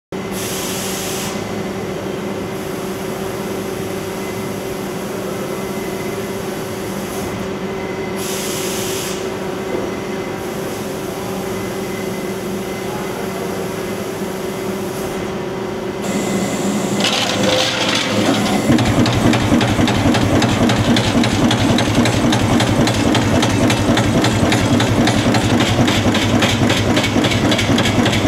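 A CNC sheet-metal laser cutter runs with a steady hum and a few brief hisses. About two-thirds of the way in it gives way to a louder rapid clatter of a CNC turret punch press punching sheet metal.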